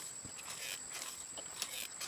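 Irregular rustling and crackling clicks of a sugar palm's dry flower sheath and clustered male flower buds being gripped and handled, over a thin steady high-pitched whine.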